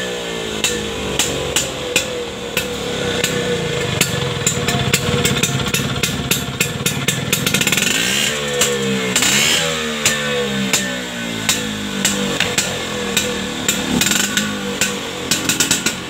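Vespa Super's two-stroke single-cylinder engine running through a BigBox aftermarket exhaust. Its pitch rises and falls with the throttle, with one clear rev about eight seconds in. A string of sharp knocks sounds over the engine.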